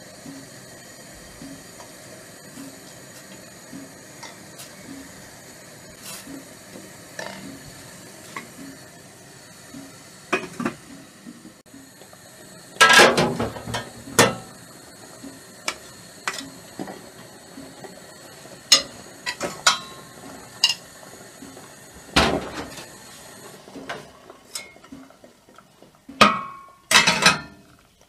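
Stainless steel pot, steamer basket and metal spoon clanking as food is handled: light scattered taps, then a loud run of metal clanks about halfway through and two more sharp clanks near the end. Under the first half is a faint steady hum with a soft regular beat.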